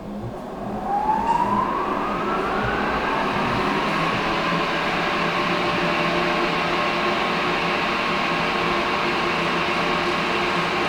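Kindt Collins Master 30L 30-inch disc sander's 3 hp three-phase motor spinning up, a whine rising in pitch over about three seconds, then running steadily at full speed with no load. It runs smoothly, with no sign of a fault.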